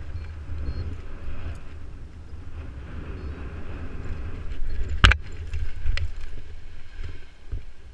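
Wind buffeting the microphone as a steady low rumble, with a sharp knock about five seconds in and a fainter one a second later.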